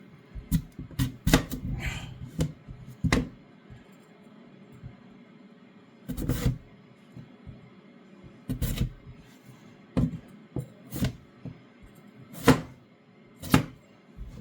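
Kitchen knife cutting through potatoes onto a chopping board: irregular knocks and thuds, a dozen or so, spaced unevenly.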